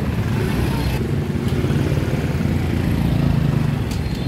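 Street traffic with motorbike engines running, louder about three seconds in.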